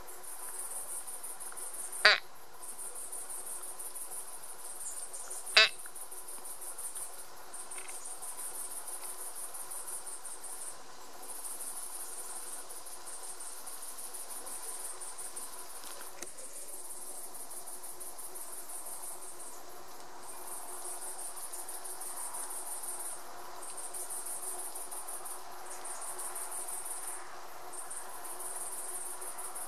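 Crickets chirring steadily in a high-pitched, rapidly pulsing chorus that drops out briefly now and then. Two short, loud, sharp sounds stand out, about two seconds in and again about five and a half seconds in.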